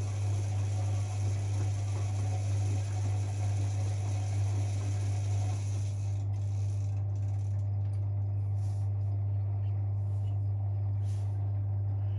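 Privileg 5020 front-loading washing machine in its wash cycle: the motor turns the drum with a steady low hum and mechanical rattling, which stops about halfway through, leaving the hum and a few clicks.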